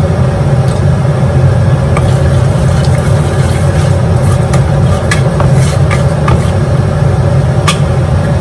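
Mustard and fennel seeds crackling and spluttering in hot oil as they temper, with sharp pops scattered irregularly, over a loud, steady low hum.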